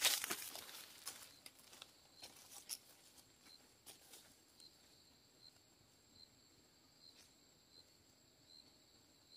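Footsteps crunching through dry leaf litter on a forest path, fading over the first few seconds as the walker moves away. Behind them, insects make a faint steady high buzz with a regular chirp repeating about every three quarters of a second.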